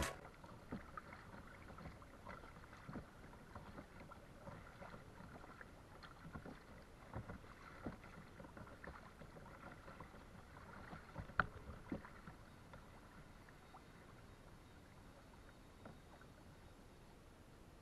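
Faint sounds of paddling a Sea Eagle 473RL inflatable kayak: irregular light splashes and knocks from the paddle in the water, the sharpest pair a little past the middle. The sounds fade to near silence in the last few seconds.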